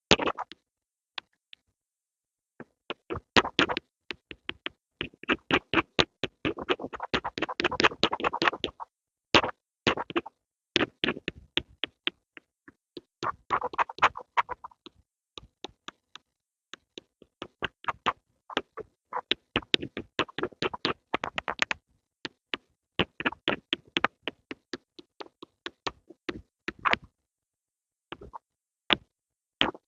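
Pencil sounds: quick runs of short scratchy strokes and taps, in clusters with brief silent pauses between them.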